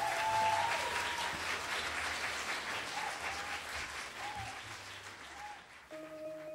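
Audience applauding, the clapping dying away about five and a half seconds in. A steady held musical tone starts just before the end.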